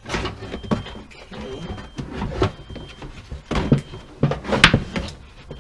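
Irregular clicks, knocks and rustling of hands handling car trim and wiring, with one sharper knock near the end.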